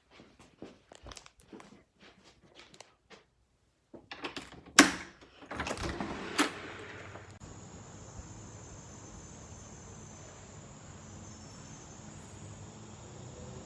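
Light patter of steps on a hard floor, then two loud clunks about a second and a half apart as a door is opened and shut. A steady outdoor hiss follows.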